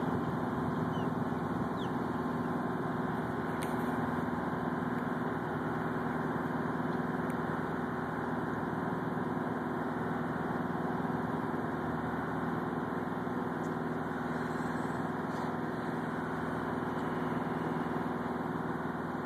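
A boat's engine running steadily at an even pitch, a constant hum.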